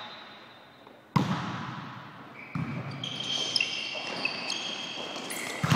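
A volleyball struck hard three times during a rally: about a second in, again around two and a half seconds, and near the end, each hit ringing on in the hall. Between the hits, trainers squeak on the court floor.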